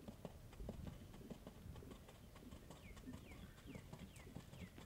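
Faint hoofbeats of a trotting dressage horse on sand arena footing. A run of short, quickly falling chirps comes in over the second half.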